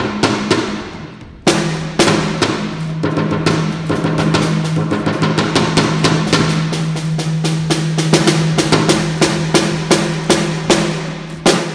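Drum-kit toms with small pads taped onto their heads to damp them, played with wooden sticks in a quick run of strokes. A low drum tone carries under the hits and drops in pitch about a second and a half in as the playing moves on, and the strokes come faster near the end.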